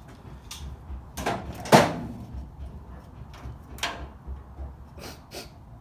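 Clamps being fitted to a steel wheel-arch panel: a series of separate metal clicks and knocks, the loudest a little under two seconds in.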